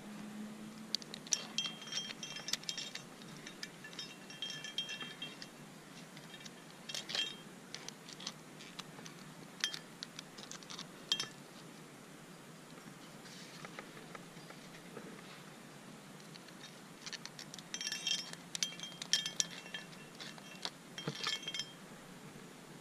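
Metal climbing gear clinking: carabiners and trad protection on a harness rack jangle and ring in several clusters of light clicks, with a quieter spell of a few seconds past the middle.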